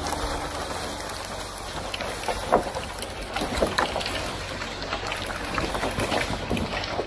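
A suspended bundle of logs hauled along a cable logging skyline: a steady rushing noise with scattered cracks and knocks of wood.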